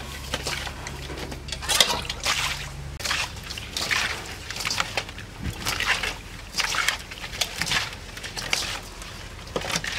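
Hands scrubbing eels with salt in a stainless steel bowl: repeated wet squelching and sloshing strokes, about one to two a second, as the slime is rubbed off their skin.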